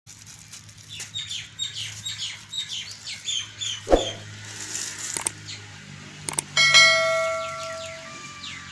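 Small birds chirping in short repeated high notes for the first few seconds, with a sharp thump about four seconds in. About six and a half seconds in, a click is followed by a bell-like chime that rings and fades over a second or so: a subscribe-button sound effect.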